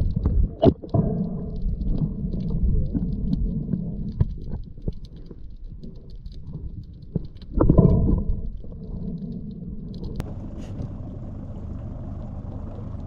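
Underwater sound picked up by an action camera: a low rumbling water noise with scattered clicks and ticks, and a loud surge of noise about eight seconds in. After about ten seconds it gives way to a steady, quieter hiss of open air above the water.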